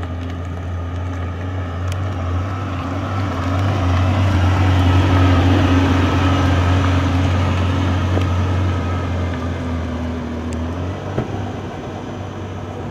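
Ferrari Testarossa's 4.9-litre flat-12 engine running at low revs as the car rolls slowly past, growing louder as it passes close and fading as it pulls away.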